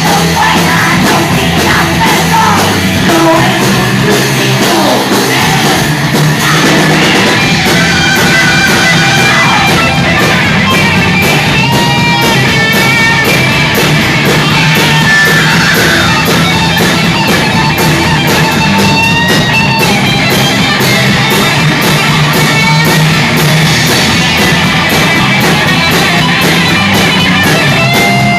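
Rock band playing loud live: electric guitars, bass and drums keep a steady beat, with melodic lines bending above, and some singing.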